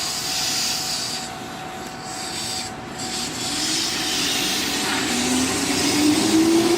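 Keihan electric train running past with a steady rushing of wheels on rail; about five seconds in, a motor whine starts and rises steadily in pitch as the train picks up speed.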